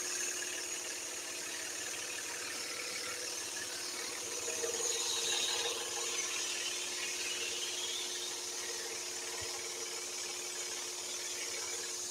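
Axminster scroll saw running steadily, its blade cutting into the corner of a wooden board that is fed in at an angle, with a steady hum under the hiss of the cut.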